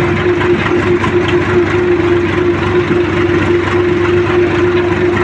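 Farmtrac 6055 tractor's diesel engine running steadily while under way, with a steady hum held at one pitch over the engine rumble.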